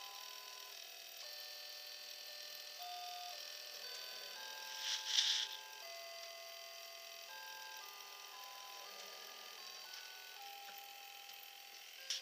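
Battery-powered Christmas decoration playing a tinny electronic melody, one note at a time through a small speaker. A short hiss about five seconds in.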